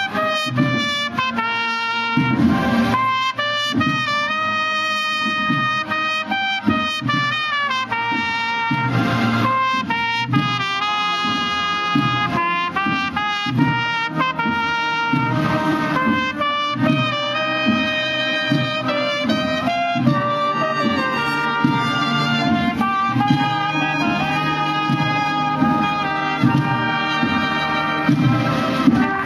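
Marching band of trumpets and other brass playing a Holy Week processional march, the trumpets carrying the melody in sustained notes over lower brass and a steady rhythmic beat.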